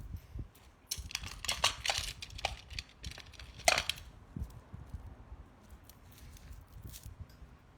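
Typing on a mechanical keyboard: a quick flurry of keystrokes about a second in, one louder clack near the middle, then scattered lighter keystrokes.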